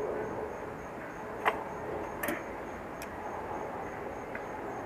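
A few sharp clicks and snaps from a bicycle tire being worked onto its rim by hand, about three within a couple of seconds. Behind them, steady faint chirping of crickets.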